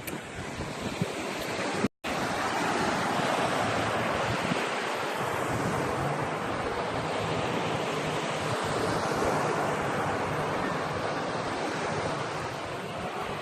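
Sea surf washing in steadily, with wind buffeting the microphone. The sound cuts out for an instant about two seconds in.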